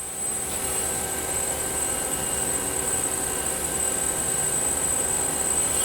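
Live-tool drill spindles on the back tool post of a Tsugami S206 CNC Swiss-type lathe running at 2500 rpm: a steady whine of several tones over a hiss.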